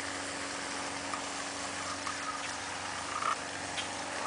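Steady rushing and splashing of water from a small artificial waterfall, with a brief high note about three seconds in.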